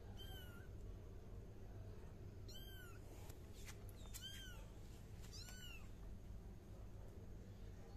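Young kittens meowing: four short, high-pitched calls, each rising and then falling in pitch, with a couple of faint clicks between them.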